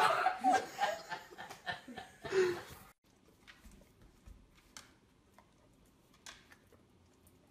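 A person laughing, trailing off over the first couple of seconds with one last burst of laughter, then it cuts to near quiet with a few faint, short clicks.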